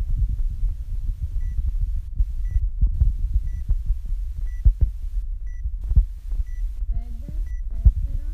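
Workout timer counting down, giving one short high beep each second from about a second and a half in, over deep, uneven thumping.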